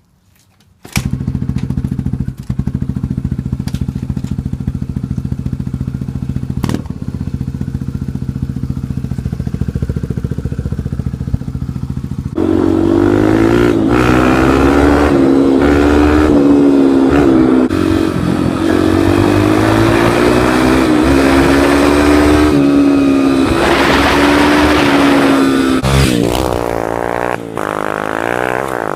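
Dirt bike engine running steadily at a low speed, then louder from about twelve seconds in as it is revved and ridden, its pitch rising and falling, with a wavering pitch near the end.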